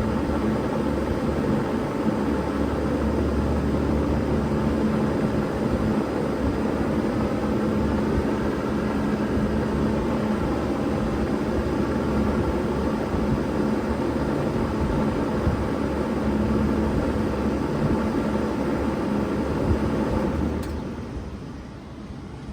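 Bard 3-ton wall-hung heat pump running in heat mode: a steady rush of fan air over a steady compressor hum. Near the end the sound falls off sharply.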